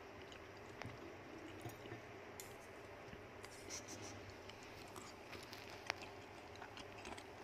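Faint scratching and a few small sharp ticks from a rodent in a plastic cone collar shuffling and feeding on a towel beside a steel bowl.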